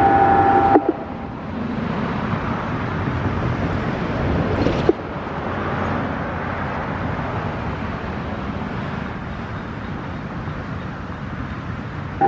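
A Whelen WPS-4004 outdoor warning siren's steady tone cuts off within the first second. Steady road traffic noise from passing cars follows, with one car growing louder and then dropping off sharply about five seconds in.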